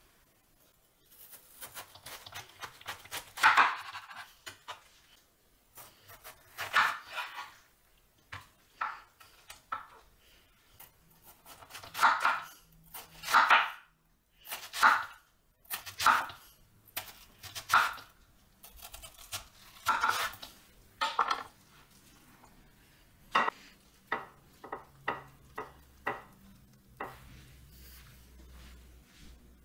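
Chef's knife slicing through watermelon rind and flesh on a wooden cutting board: a series of crisp cuts a second or more apart, then a quicker run of cuts, about two a second, in the last third.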